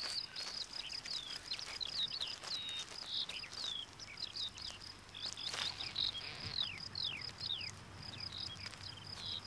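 Outdoor ambience: an insect trills steadily in rapid high-pitched pulses while birds call in many short, quick downward whistles. There is a single brief click about halfway through.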